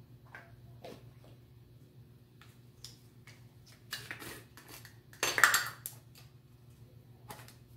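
Plastic measuring spoons and spice containers clicking and rattling as dry spices are measured into a bowl, with a louder brief rustle a little past five seconds in.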